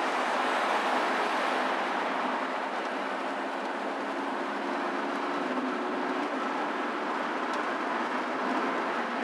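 A car driving on a multi-lane highway: steady tyre and road noise with a faint hum, heard from inside the car.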